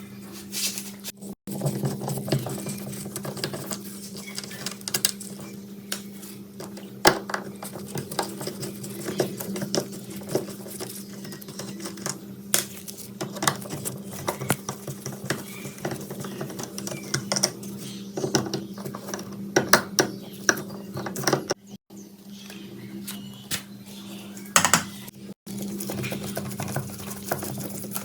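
Metal parts and hand tools clinking and knocking at an irregular pace during work on a rusty exhaust fan, over a steady low hum.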